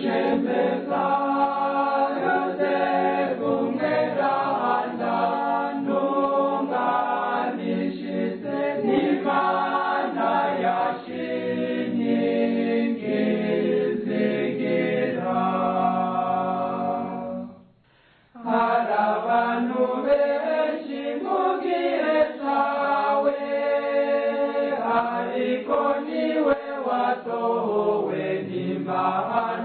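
Choir singing a Kirundi Catholic hymn to Saint Joseph, with a brief pause about two-thirds of the way through before the singing starts again.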